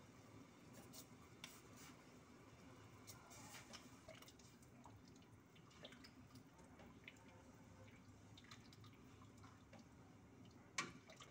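Near silence with faint, scattered clicks of a ladle stirring coconut-milk curry in an aluminium pot, and one sharper knock of the ladle against the pot near the end.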